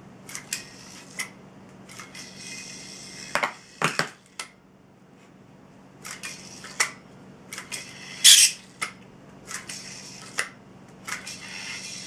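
A yo-yo being played: a string of short clicks and rasping whirs, with the loudest one about eight seconds in.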